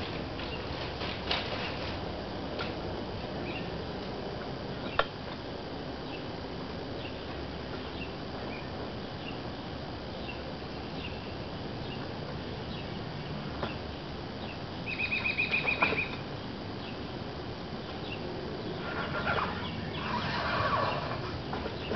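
Steady outdoor background noise with scattered light taps and scuffs of a person moving on a railroad track, a sharp click about five seconds in, and a brief rapid flutter of pulses about fifteen seconds in.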